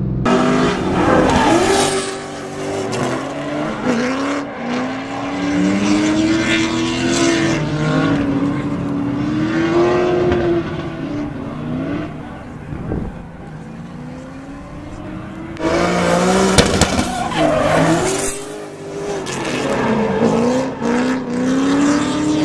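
BMW E36 drift car engines revving hard, their pitch repeatedly climbing and falling through the drift, with tyres screeching.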